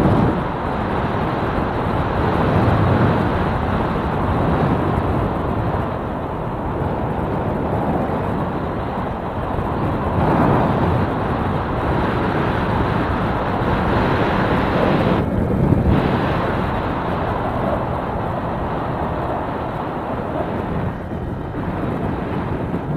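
Steady wind and road noise from a small motorcycle under way, with wind rushing over the microphone and the engine and tyres running underneath. The wind hiss briefly drops about two-thirds of the way through.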